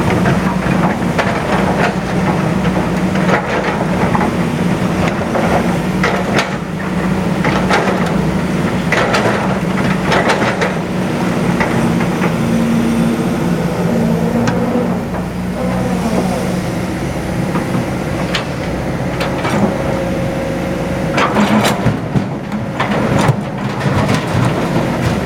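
Heavy diesel machinery, an excavator working at a quarry, running steadily with repeated clanks and knocks. A short wavering whine rises over the engine about fifteen seconds in.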